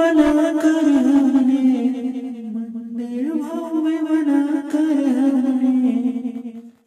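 A devotional Hindi song: a voice sings long, drawn-out held notes with a slight waver, in two phrases with a short break about three seconds in, and fades out just before the end.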